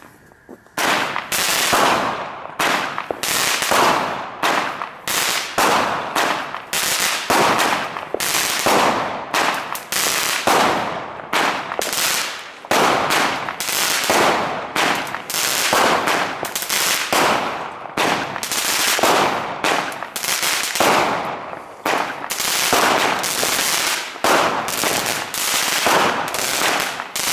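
Fireworks going off in a long, irregular series of sharp bangs, one to two a second, each followed by a short echo, starting about a second in.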